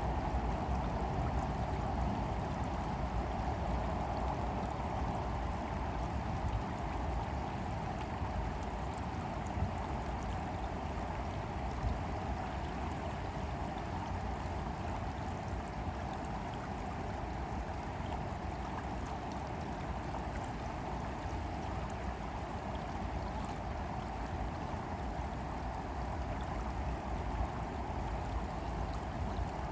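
Stream water running steadily, a constant rushing with faint gurgles, over a low rumble of spring wind.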